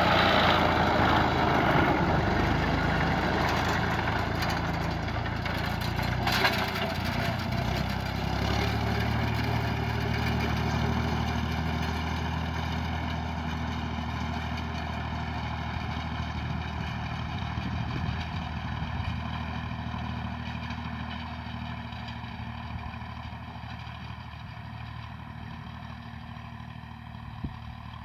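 Massey Ferguson 135 tractor engine running steadily as the tractor drives past and away, its sound fading gradually. A sharp click comes about six seconds in, and another near the end.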